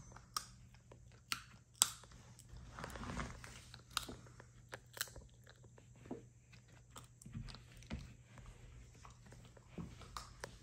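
A puppy chewing and gnawing on a chew, with irregular crunching clicks.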